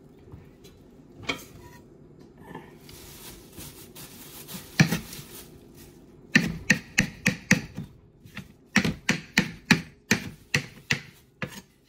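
Chef's knife chopping fresh flat-leaf parsley on a cutting board: a few scattered taps at first, then from about six seconds in a quick run of knife strikes on the board, about four a second.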